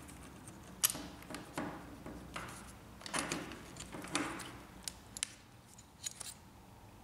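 Small plastic and metal parts of a laser printer fuser unit being handled and fitted: a string of sharp clicks and short scrapes as the metal side plate, black plastic lever and spring are put back in place.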